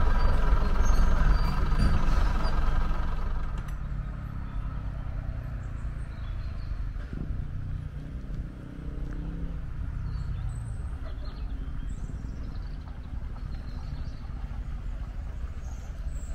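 Diesel railcar engine idling, heard from on board, for about the first three and a half seconds. Then a quieter outdoor background with a fading low rumble and birds chirping now and then.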